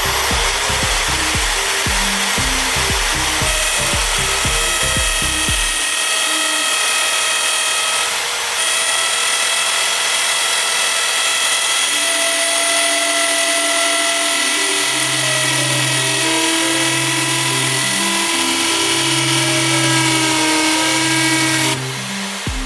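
An electric drill runs steadily at high speed, giving a continuous high-pitched whine over loud grinding and friction noise. It stops near the end. Background music with a beat plays underneath.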